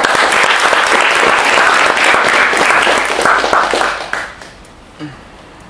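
Audience applauding, a dense patter of many hands clapping that stops about four seconds in.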